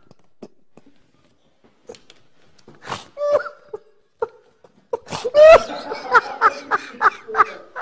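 A man laughing helplessly: a few short, scattered sounds at first, then about five seconds in a loud fit of laughter in rapid peals, about three a second.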